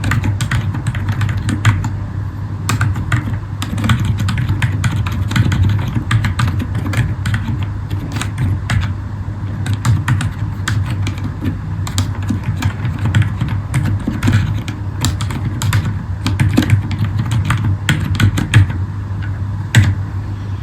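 Steady typing on a Zifriend ZA63 mechanical keyboard with Akko Fairy silent switches: a quick, irregular run of soft keystrokes, over a steady low hum.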